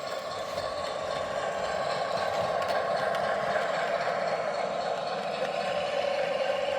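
Cavalex Class 60 model locomotive running, a steady hum from its motor and gear train that grows a little louder over the first couple of seconds.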